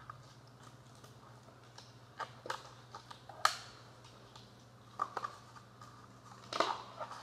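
Rubber balloons being stretched and worked by hand, giving scattered short squeaks and snaps, a few at a time, over a steady low hum.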